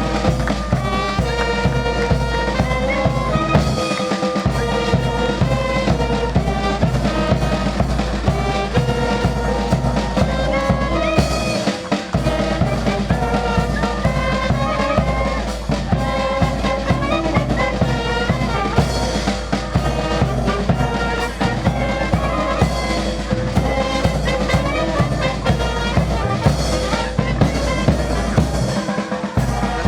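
Instrumental music with a steady drum beat and a heavy bass line, the bass briefly dropping out a few times.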